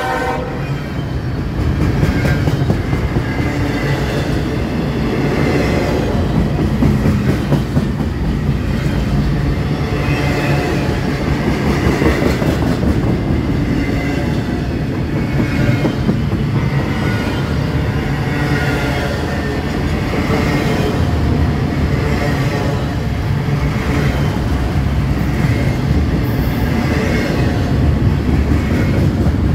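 Double-stack container freight train passing close by: a steady, loud rumble of well cars rolling over the rails, with rapid clatter from the wheels.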